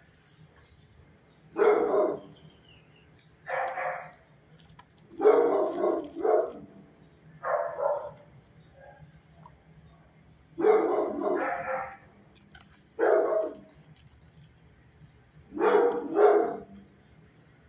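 Dogs barking in a shelter kennel: about seven short bouts of one to three barks each, with quiet gaps of a second or two between them.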